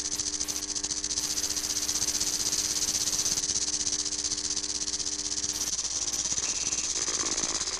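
A loud, steady hiss with a fast rattling flutter through it, over a low held drone of several tones; the drone drops out briefly about six seconds in.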